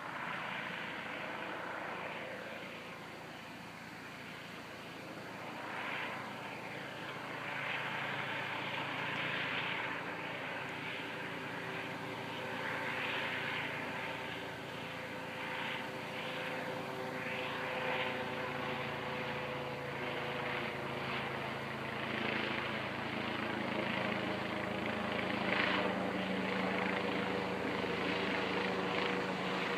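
Police helicopter flying, its engine and rotor giving a steady drone with a constant hum, growing somewhat louder in the second half.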